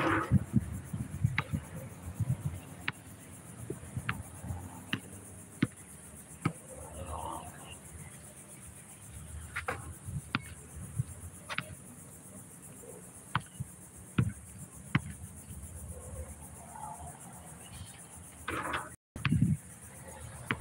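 Steady high-pitched drone of insects in the surrounding grass and trees, with scattered sharp knocks of a basketball bouncing on the asphalt court, about one every second or two.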